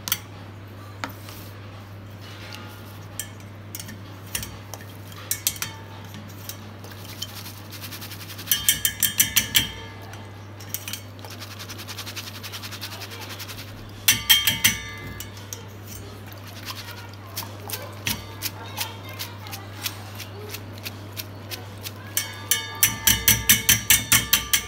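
Stainless-steel mesh strainer clinking against the rim of a steel bowl as it is dipped and shaken in water, in three quick bursts of rapid metallic taps, about six a second.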